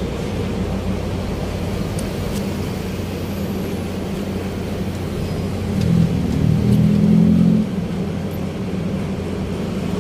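Road traffic: a steady rumble of engines and tyres, with one vehicle's engine growing louder and passing from about six seconds in to just before eight seconds.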